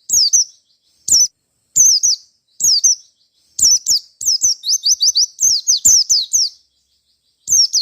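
Pleci white-eye (Zosterops) singing in quick, loud bursts of sharp, high down-slurred notes, with short silences between phrases and a faster rattling run of repeated notes about four seconds in: the rapid 'nembak' song of a wild-type white-eye.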